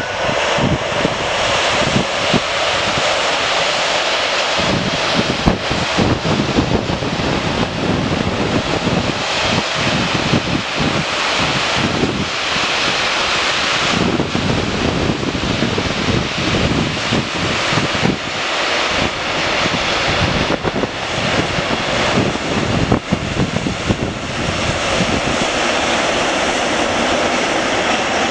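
Long freight train of loaded open wagons rolling past at speed, a steady rushing rumble of steel wheels on the rails with faint scattered knocks.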